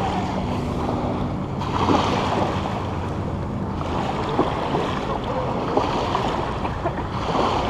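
Small bay waves lapping and washing at the shoreline, swelling a little about two seconds in and again near the end, with wind rumbling on the microphone.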